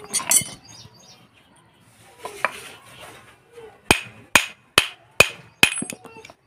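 Hammer striking a disc harrow's metal bearing hub, five sharp ringing blows in quick succession in the second half, while working on a bearing that has failed because its grease dried out.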